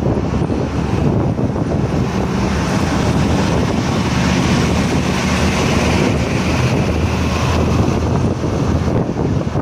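Wind rushing over the microphone of a bus travelling at high speed, with the bus's low engine drone and road noise underneath, steady throughout.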